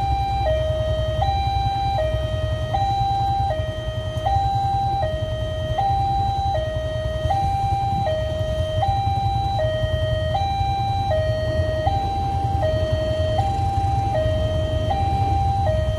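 Railway level-crossing warning alarm sounding its electronic two-tone signal, alternating evenly between a higher and a lower tone, each held just over half a second. It signals that a train is approaching and the crossing is closed. A steady low rumble runs underneath.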